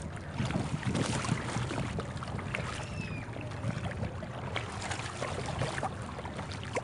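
Water lapping and splashing against a small boat on shallow sea, with many small knocks and splashes and wind on the microphone.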